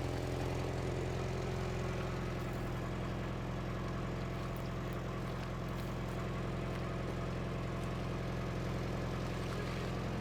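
A motor vehicle's engine running steadily, a low even drone, with a few faint clicks over it.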